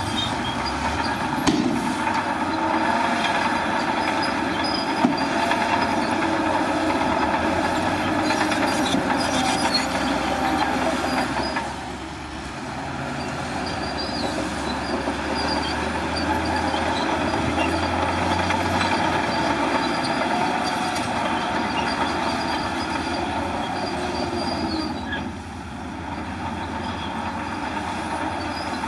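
Crawler bulldozer at work: its diesel engine runs steadily under load amid the clatter of its steel tracks. The sound eases off briefly about twelve seconds in and again near the end.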